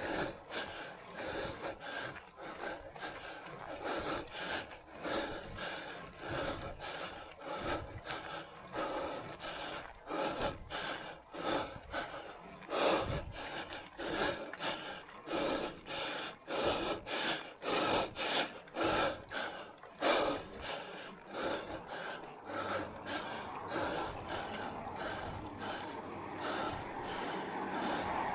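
A cyclist's hard, rhythmic breathing while climbing a steep grade, quick breaths at about two a second. A passing motor vehicle starts to rise in near the end.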